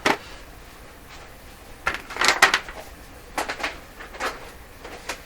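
Electrical cords and plugs clattering as they are handled and sorted out of a bucket: a handful of short clatters, the loudest about two seconds in.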